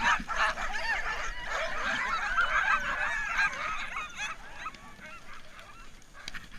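A pack of sled dogs yelping and howling in a dense, overlapping chorus that thins to scattered yelps after about three and a half seconds, once the team is running.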